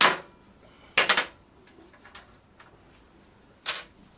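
A few sharp clacks of tools and parts being handled during a motorcycle strip-down: one at the start, a quick run of three about a second in, and one more near the end.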